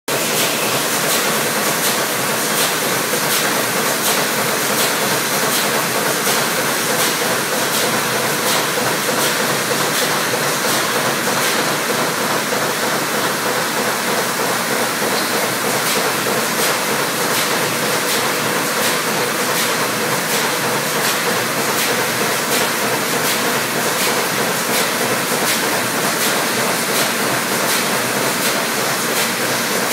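Steady machinery noise on the floor of a plastic injection-moulding plant: a dense, even hiss and hum with a light regular ticking about twice a second.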